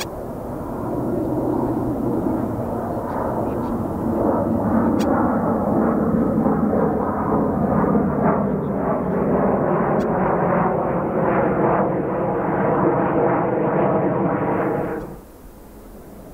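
Eurofighter Typhoon jet engine noise, loud and steady, building over the first couple of seconds and then holding. It cuts off abruptly near the end.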